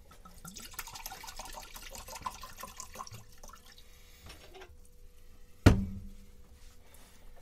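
Red wine being poured into a glass, a few seconds of gurgling liquid. Then a single sharp knock with a short ring, about two-thirds of the way through.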